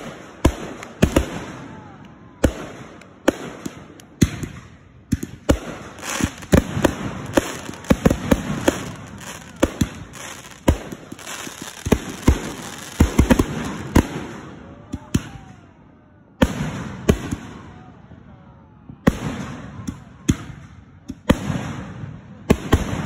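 Consumer aerial fireworks being set off: a dense run of sharp launch shots and bursts, several a second at times, with a noisy hiss between them. The shots thin out briefly about three-quarters of the way through.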